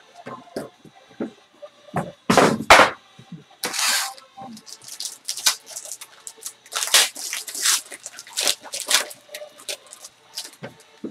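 Trading-card pack wrapper and cardboard box being handled: a run of sharp crinkles and rustles as the wrapped pack is opened, loudest about two to three seconds in.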